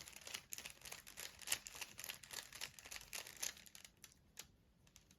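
Plastic 3×3×3 Rubik's Cube being twisted quickly by hand: a fast run of light clicks and rattles as the faces turn. The clicks stop about three and a half seconds in, followed by a couple of single clicks.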